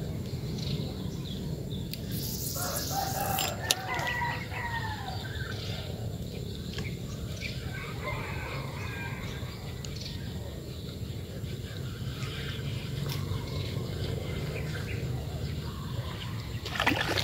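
A bird's call of about two seconds, starting about two seconds in, with a fainter call near the middle, over steady low outdoor noise. A sharp click comes near the end of the first call and another just before the close.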